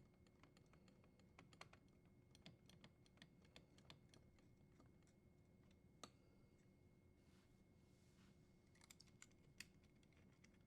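Near silence with faint, scattered small clicks and ticks: a Phillips screwdriver unthreading the grounding-wire screw on a dishwasher's junction-box terminal block, and the wire being freed.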